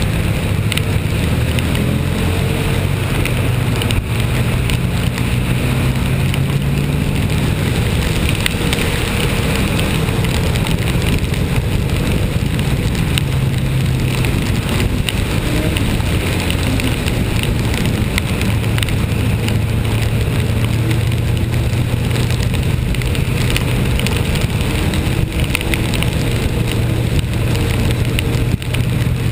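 A vehicle driving in the rain: its engine drones low and steady, shifting in pitch now and then, over a constant hiss of rain and wet road noise.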